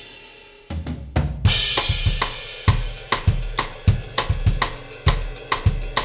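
Background music: after the previous tune fades, a drum kit comes in about a second in with a short fill, then plays a steady beat of kick drum, snare and hi-hat.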